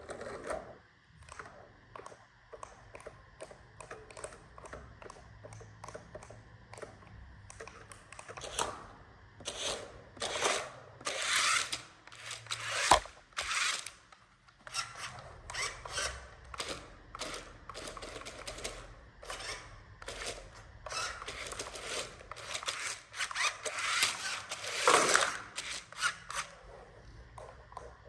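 Irregular clicking and clattering of plastic toy vehicles and parts on a hard surface, with busier stretches of clatter and one sharp knock about halfway through.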